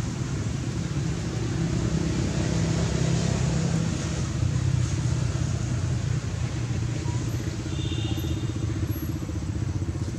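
Steady low rumble of an engine running, with an even fluttering pulse.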